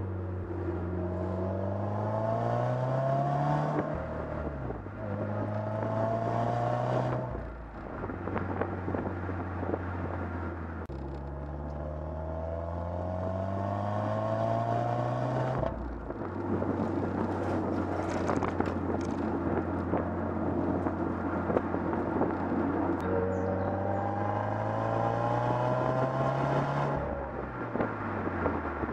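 2015 Subaru WRX's turbocharged 2.0-litre flat-four exhaust, heard from the rear of the car, pulling hard through the gears: the pitch rises in four runs, each cut off by a shift, with steadier cruising and wind and road noise in between.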